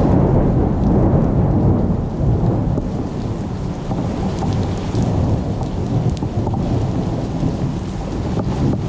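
Thunder rumbling, loudest about the first second and a half and rolling on throughout, over steady rain with scattered drops ticking.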